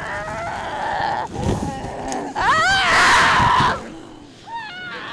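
A woman's high-pitched shrieks, rising and falling in pitch: a breathy stretch in the first second, a long loud shriek about two and a half seconds in, and a shorter one near the end.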